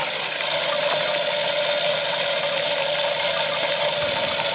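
Tripod game feeder's spinner motor running and broadcasting corn: a steady whir over a hiss of scattering feed, the feeder working on its test cycle.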